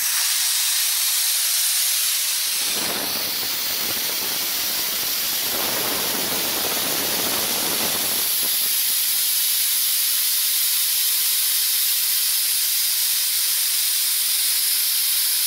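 Compressed air hissing steadily out of an air compressor's tank, bleeding down its pressure until the pressure switch cuts the motor back in. The rush gets fuller and lower for a moment about three seconds in and again around six to eight seconds.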